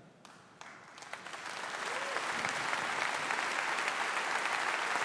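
Audience applause, starting a moment in, swelling over the first two seconds and then holding steady.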